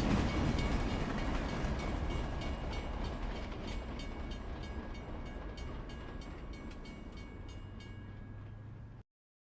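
Train running on the rails and fading away as it recedes, its wheels clicking over the rail joints with a faint high ringing. The sound cuts off abruptly about nine seconds in, leaving silence.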